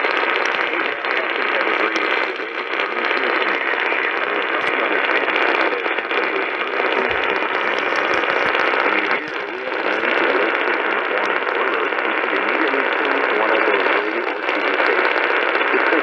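Static hiss from a Kaito Voyager Pro portable radio's speaker, held between about the low mids and the upper treble with a little crackle. It dips briefly twice, about halfway through and again near the end.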